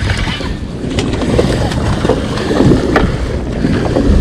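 Wind buffeting the microphone on the deck of a sportfishing boat at sea, over a steady low rumble. Two sharp clicks come about a second in and again near three seconds.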